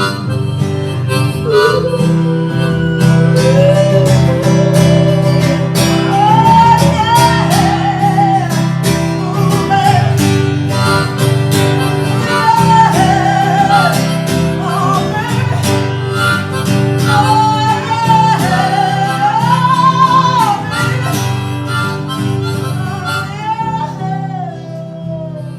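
Harmonica playing a melody over strummed acoustic guitar, an instrumental break in a live acoustic song; it dies down near the end.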